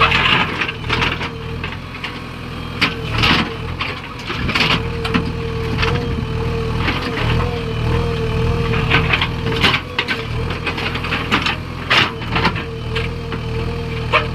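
Diesel engine of heavy machinery running steadily, with a steady whine over it and repeated sharp clunks and knocks of stone being loaded.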